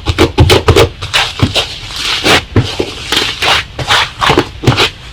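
Slime being squeezed and pressed by hand, making a quick run of sticky clicks and pops with crackly, squelching bursts in between.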